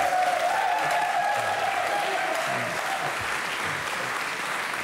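Studio audience applauding, a dense steady clapping, with a single high voice carrying over it for roughly the first three seconds.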